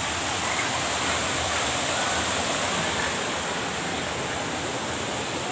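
Waterfall rushing, a steady even noise of falling water.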